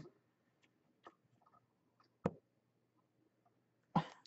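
Faint handling noises of a hard plastic card case: a few small clicks, a sharper click a little over two seconds in, and a louder knock near the end as a hand takes hold of the case.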